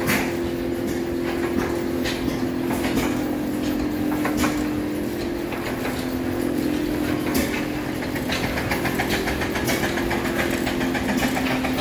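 Antique hit-and-miss stationary engines running: irregular firing pops about once a second over a steady mechanical hum. A faster ticking clatter comes in about two-thirds of the way through.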